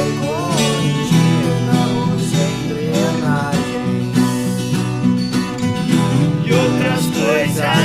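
Country-style folk music: plucked viola caipira and acoustic guitar playing a steady accompaniment, with a wavering melody line on top.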